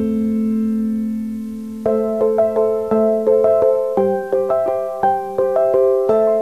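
Background music: a held chord, then a quick run of separate notes starting about two seconds in.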